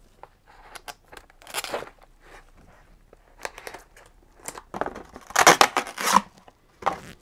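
Tape on a cardboard box being cut with hand cutters in short snips and scratches, then the cardboard lid pulled off with a loud scraping rasp about five seconds in.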